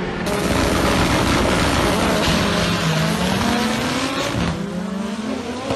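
Drag-race car engines running loudly at the start line of a drag strip, with one engine's pitch dipping and then climbing again.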